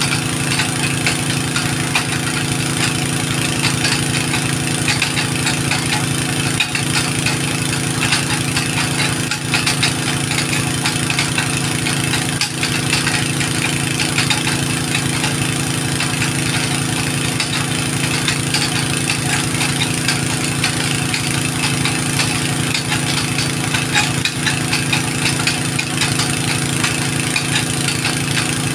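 An engine running at a steady speed, its pitch unchanging.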